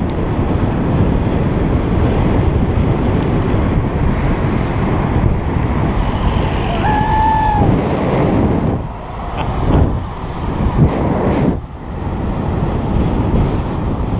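Wind buffeting a bike-mounted camera's microphone while cycling fast, a loud steady rush that eases briefly twice in the second half. About seven seconds in a single short tone sounds for under a second.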